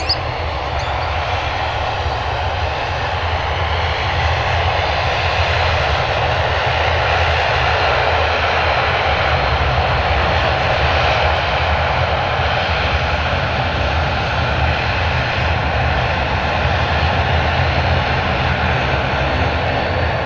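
Airliner engines running steadily, a constant drone with an even low hum and no rise or fall in pitch or level.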